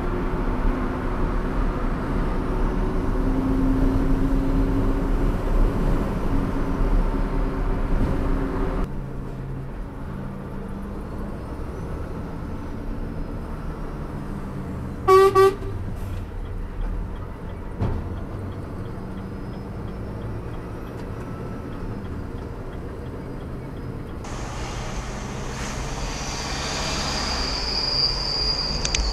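Steady road and engine noise heard from inside a moving vehicle, changing abruptly at two cuts. About halfway through, a car horn gives one short toot, the loudest sound. Near the end a high steady whine grows louder as a car overtakes close alongside.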